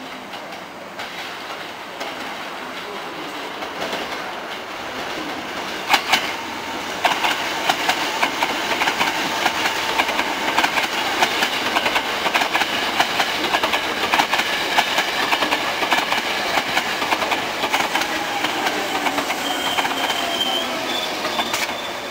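Hankyu 7000 series eight-car field-chopper electric train arriving, growing louder as it approaches over the points. Its wheels clatter over rail joints and crossings in a rapid rhythm as the cars run close past. Near the end, as it slows, there is a falling whine and a short high squeal.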